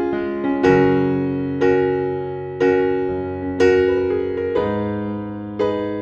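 Gentle piano music: soft chords struck about once a second, each ringing out and fading before the next.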